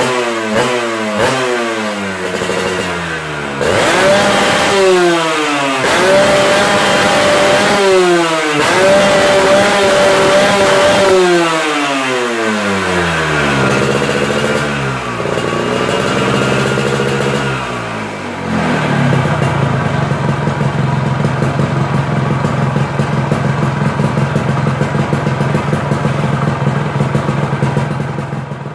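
Yamaha RXZ single-cylinder two-stroke engine running through a cheap aftermarket exhaust. It is revved up and down several times, twice held high for about two seconds, then settles to a steady idle for the last third.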